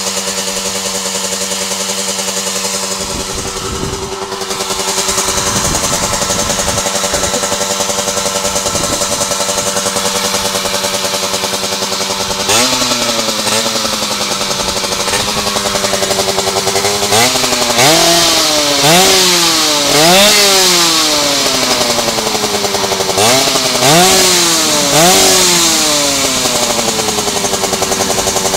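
A 50 cc two-stroke racing motorcycle engine idling steadily. From about halfway through it is blipped in several sharp revs, each rising and falling quickly, then it settles back to idle near the end.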